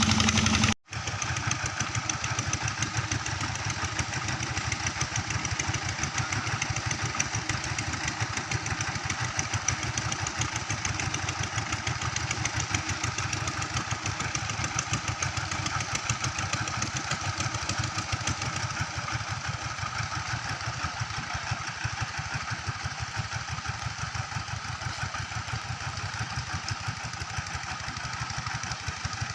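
Engine of a river sand suction pump running steadily at a constant speed, after a brief dropout just under a second in.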